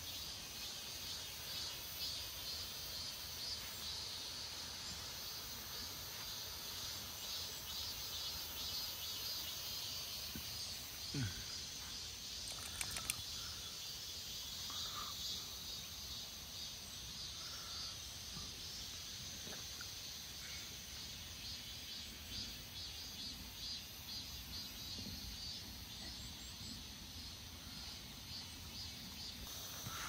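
Cicadas buzzing in a steady, high, pulsing chorus, with a few short clicks about halfway through.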